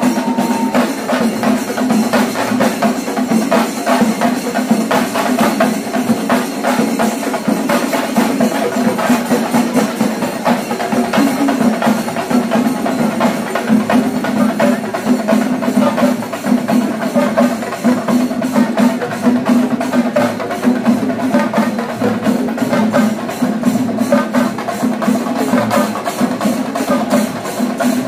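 Kerala chenda drum ensemble playing a fast, dense rhythm of stick strokes, keeping an even, unbroken beat.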